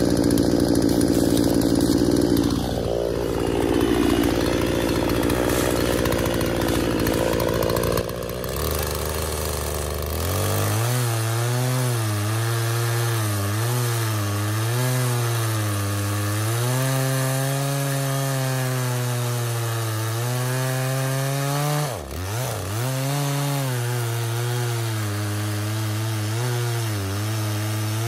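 Craftsman 358.351700 two-stroke chainsaw, just got running again, sawing through a log. Its engine pitch wavers up and down as the chain bites, and sags sharply once about two-thirds of the way through.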